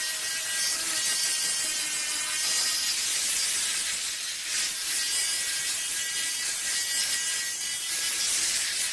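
Steady rasping scrape of abrasive hand work on a rusty axe, running continuously with small swells in loudness.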